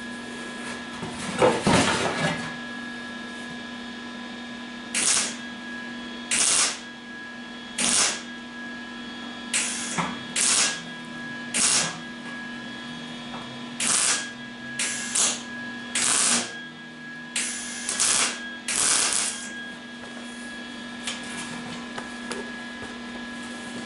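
MIG welder laying short stitch welds to build up cracks in the thin sheet steel of a 1974 MGB's front valance: about a dozen brief bursts of arc noise, each under a second, separated by short pauses, over a steady hum.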